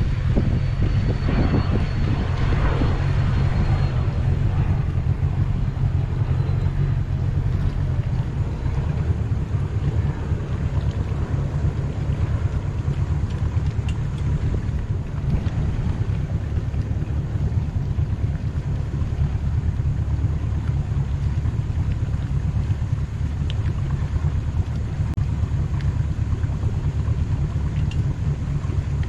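Towboat's engine running steadily at low speed while towing a disabled boat on a line, a constant low drone, with some wind rumble on the microphone.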